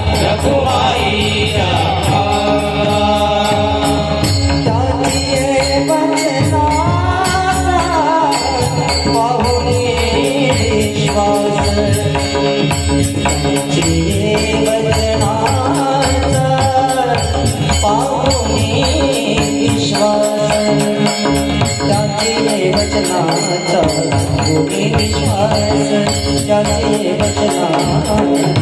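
A male singer performing a Marathi devotional abhang, with long ornamented notes that glide up and down, over steady instrumental accompaniment and regular rhythmic percussion.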